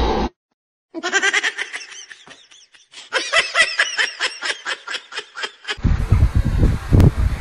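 A person laughing in a long run of quick, high-pitched giggles, rising and falling several times a second. Just before the end this gives way to louder, irregular rubbing and handling noise.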